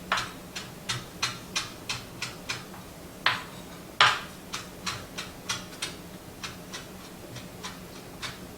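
Knife chopping parsley on a cutting board, in an even rhythm of about three strokes a second, with two harder chops about three and four seconds in.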